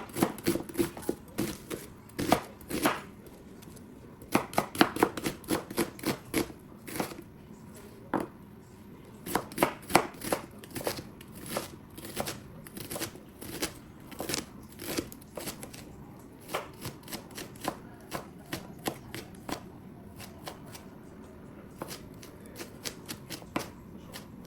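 A knife chopping on a cutting board in irregular runs of sharp chops, several a second, with short pauses between.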